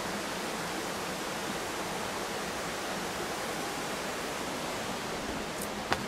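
Steady rushing of river water in a gorge, an even unbroken hiss. A single short knock just before the end.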